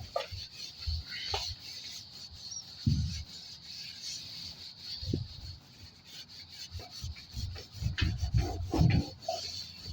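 Rag rubbing and scrubbing caked dirt off a garage door, in irregular strokes with soft low thumps against the door.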